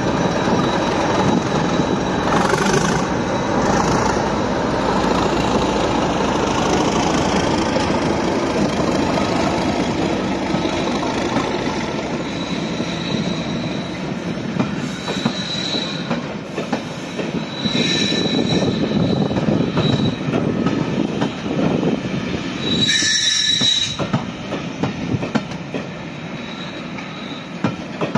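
A slow-moving train passing close by: at first the Class 37 diesel locomotive's English Electric engine running as it goes by, then the coaches rolling past with clicking over the rail joints and several short, high-pitched wheel squeals, the loudest near the end.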